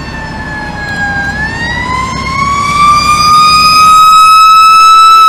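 Fire engine's Federal Q mechanical siren wailing. Its pitch dips a little, then winds up slowly and holds high, and it grows much louder as the truck closes in from behind.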